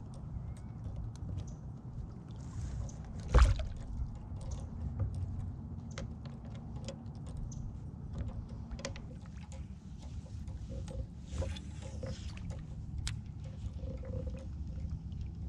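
Small knocks and clicks of handling on a plastic fishing kayak over a low steady rumble, with one sharp loud knock a few seconds in.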